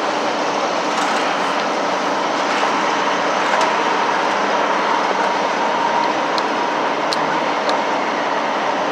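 Steady rushing of diesel fuel pumping through a truck-stop nozzle into a semi truck's fuel tank, with a faint whine and a few light clicks in the second half.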